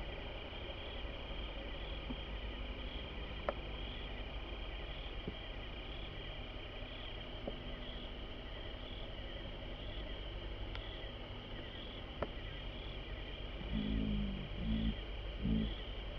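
Steady chorus of summer insects: a shrill, evenly pulsing buzz, over a low rumble that swells a few times near the end.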